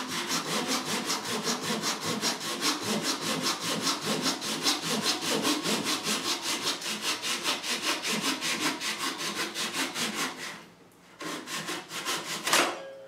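Japanese pull saw cutting through wood by hand in quick, even strokes. The sawing stops about ten and a half seconds in, followed by a sharp knock near the end.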